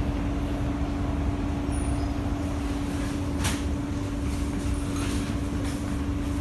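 Cabin noise of an SMRT C151A metro train pulling into a station and slowing to a stop: a steady low rumble with one constant hum, and a single sharp click about three and a half seconds in.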